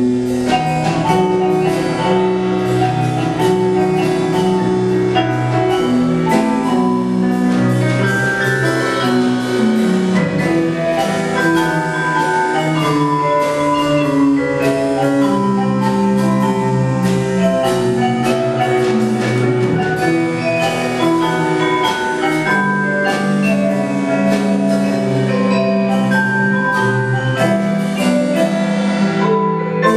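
Mallet percussion, vibraphone and marimba, playing a tune as a steady stream of struck, ringing notes over a lower sustained line.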